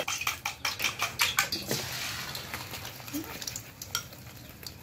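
Chopsticks clicking rapidly against a ceramic bowl as eggs are beaten, then beaten egg poured into a hot wok and sizzling from about two seconds in, the sizzle fading.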